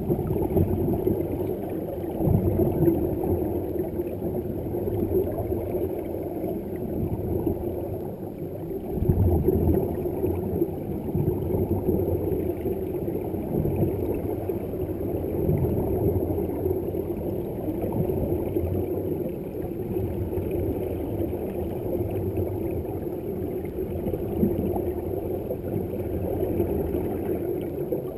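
Underwater sound picked up by a camera in a waterproof housing: a steady muffled rumble with bubbling from divers' air.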